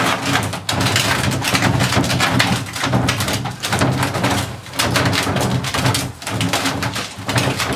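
Large black plastic barrel being dragged and turned on a concrete floor, a loud continuous scraping rumble broken by rapid small knocks.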